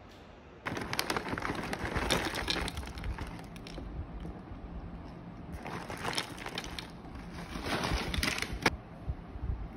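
Crinkling of a plastic granola bag and crunchy granola clusters tipping into a wooden bowl, in three rustling bursts, the first and longest starting about a second in.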